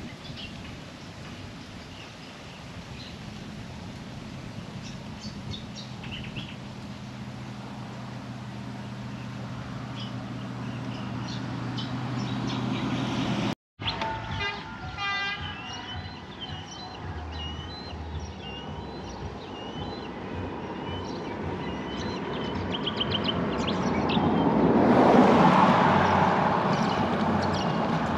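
Birds chirping over a steady low engine hum that grows louder, then cuts out briefly. After the break, birds again and a vehicle passing, swelling to its loudest a few seconds before the end.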